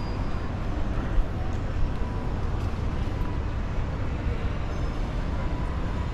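Indoor shopping-mall atrium ambience: a steady low rumble with faint, indistinct voices in the background.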